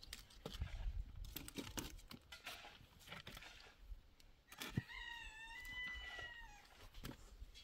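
A rooster crowing once, heard faintly: a single drawn-out crow of about two seconds, starting about halfway in and dropping in pitch at the end. Scattered light knocks and clicks come before it.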